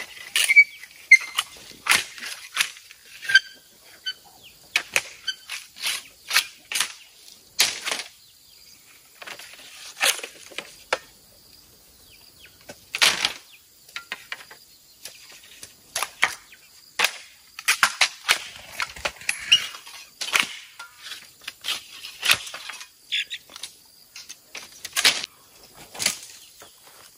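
Bamboo poles and split bamboo strips clacking and rattling against each other as they are handled, in many irregular sharp knocks with short gaps.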